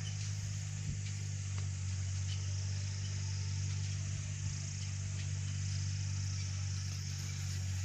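Steady low electrical hum under a high, even hiss, with a few faint clicks of small parts being handled on the bench.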